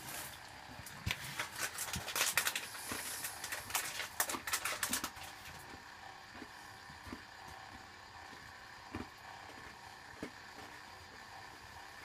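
Bendix 7147B front-loading washing machine in its wash phase: the drum tumbles the wet laundry with sloshing and splashing water for about five seconds, then stops and rests, leaving only a few faint clicks.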